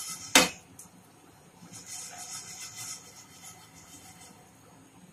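A sharp knock about half a second in, then crisp fried gram-flour strands (jhuri bhaja) rustling softly as they slide around a nonstick pan that is being shaken.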